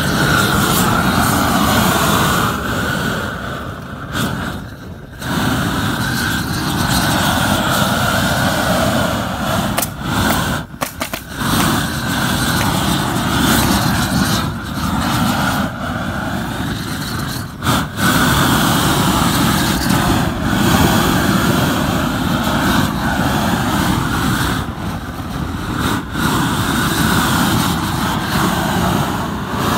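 Propane roofing torch burning with a loud, steady rush of flame as it heats the back of a modified bitumen roll for torch-down roofing. The flame noise dips briefly a few times.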